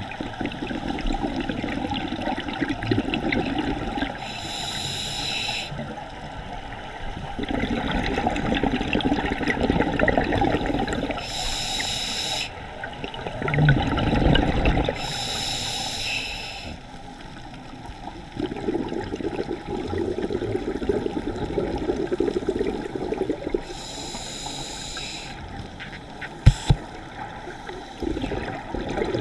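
Scuba diver breathing underwater through a regulator: about four inhalations, each a short hiss, alternating with longer bursts of bubbling from the exhaled air. Two sharp knocks come near the end.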